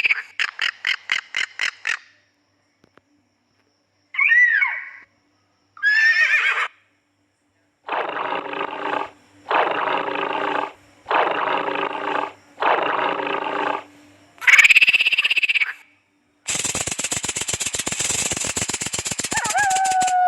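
A series of different animal calls played one after another with short pauses between them: a quick run of pulses, two short calls that bend in pitch, four long rasping calls in a row, and a long pulsed call near the end.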